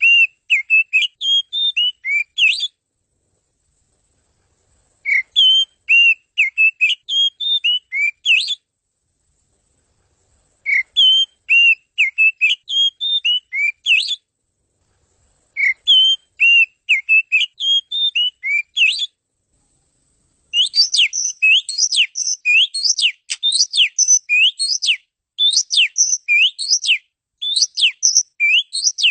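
Oriental magpie-robin (kacer) singing: the same whistled, warbling phrase of about three seconds repeated four times with short silent gaps, then a long, fast run of sharp sweeping whistles.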